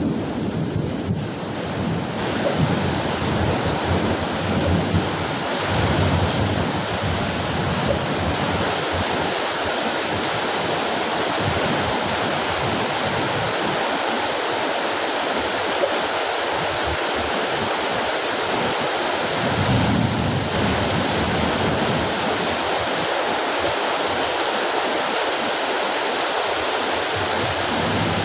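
Heavy rain pouring steadily in a thunderstorm, with low rolls of thunder in the first few seconds and again about twenty seconds in.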